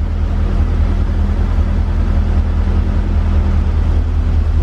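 1984 Corvette's electric radiator cooling fan running steadily, having switched on by itself as the coolant temperature rose, over the 5.7-litre V8 idling.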